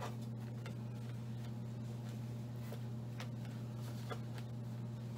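Hands working a rabbit hide onto a taxidermy mannequin: faint rustles and scattered small ticks, over a steady low hum.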